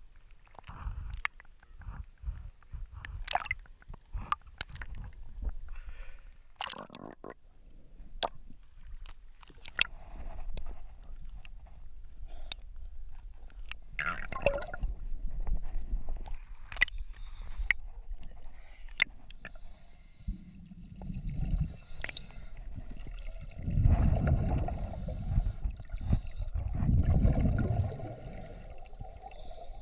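Water sloshing and gurgling against a GoPro's waterproof housing at the surface and as it goes under, with scattered sharp clicks. In the second half come repeated rumbling bursts of scuba exhaust bubbles, every few seconds.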